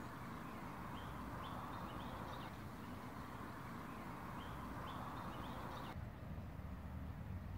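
Birds chirping in two short runs of quick rising notes over a steady outdoor background noise.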